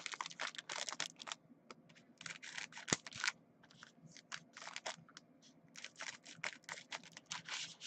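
Typing on a computer keyboard: quick runs of key clicks in short bursts with brief pauses between.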